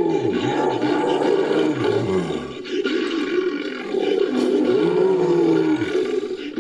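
Designed creature roars and growls built from big-cat roar recordings: a run of long, layered roars with short breaks about two and a half and four seconds in.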